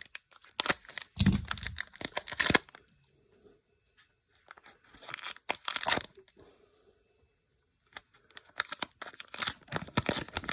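Foil wrapper of a Pokémon trading-card booster pack being torn open and crinkled by hand, in several bursts with short pauses between them.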